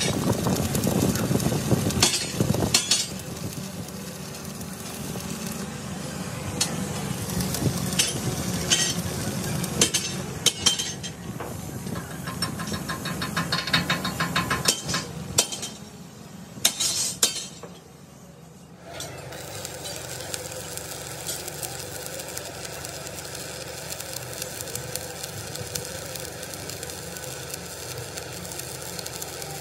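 Metal fabrication sounds: scattered clanks and clinks of steel being handled and struck, over busy, crackling workshop noise. About two-thirds of the way through it changes abruptly to a steadier machine-like noise.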